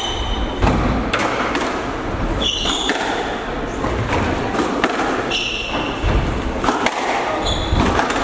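Squash rally: the ball is struck by the rackets and smacks off the court walls in repeated sharp hits, about once a second. Several brief high squeaks come from court shoes on the wooden floor.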